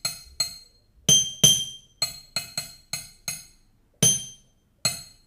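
Upturned stainless-steel tumbler tapped on top in a rhythm: about eleven sharp metallic clinks with a bright ring, two quick louder strikes about a second in, some left ringing and others cut short.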